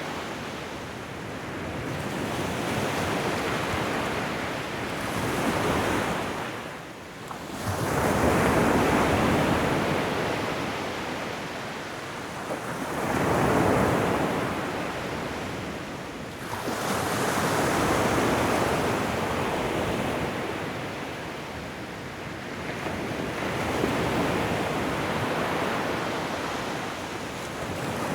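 Ocean surf: waves breaking and washing onto a shoreline one after another, each one swelling and fading over a few seconds.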